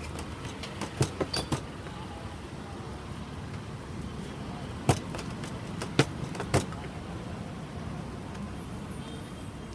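Kerala parotta dough being worked on a steel counter: sharp smacks as it is slapped down, one at the start, four in quick succession about a second in, and three more between about five and six and a half seconds, over a steady background hum.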